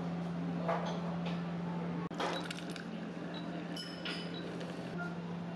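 Self-service coffee and tea dispenser humming steadily, with a few clinks of a ceramic cup about two seconds in and again around four seconds in as coffee is dispensed into it.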